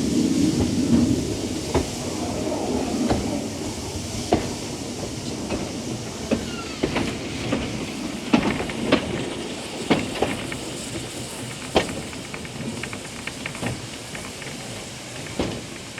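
Steam-hauled narrow-gauge train running, heard from on board: a steady rumble and hiss with irregular clicks and clanks from the wheels and running gear, and a brief squeal about six seconds in. The running noise is loudest at the start and eases off.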